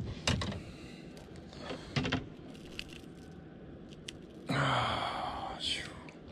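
A few sharp clicks and knocks from hands handling a fish and tackle, then a long, heavy breath lasting about a second, starting about four and a half seconds in.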